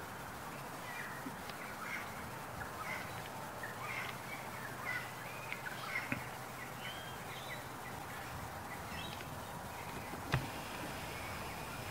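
Many short bird calls, scattered and overlapping, over a steady outdoor hiss. A single sharp click sounds about ten seconds in.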